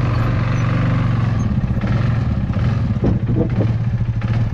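Engine running steadily at an even speed with a constant hum.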